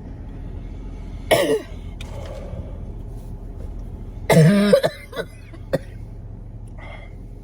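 A person coughing hard twice, about a second in and again a little past four seconds, the second cough longer with a strained voice in it, followed by a few small throat sounds. It is a throat burning and irritated from a swallowed hot pepper tincture.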